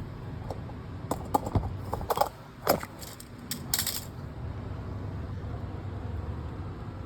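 Metal tools and steel parts clinking and clanking: a quick run of sharp strikes in the first half, over a steady low background hum.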